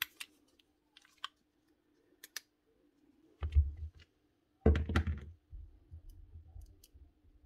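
Drill gearbox parts being handled and fitted together by hand: scattered small clicks, then two louder knocks about three and a half and five seconds in, over a faint steady hum.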